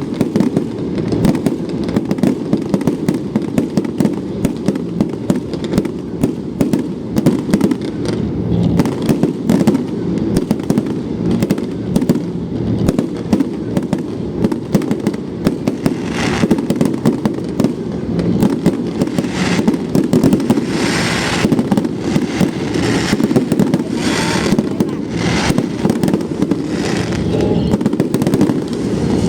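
Fireworks display: a dense, continuous barrage of bangs, with stretches of brighter crackling from about halfway on.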